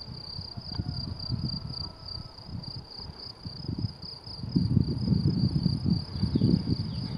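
Crickets chirring in the grass, a steady high pulsing trill. Under it, an uneven low rumble of wind on the microphone, stronger from about halfway in.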